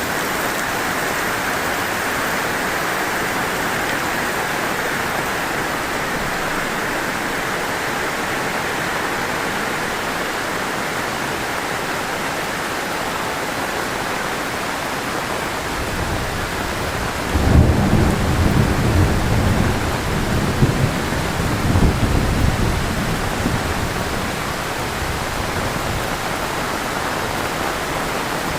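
Heavy rain pouring steadily. Just past the middle a low rumble of thunder comes in, swells several times and dies away over about eight seconds.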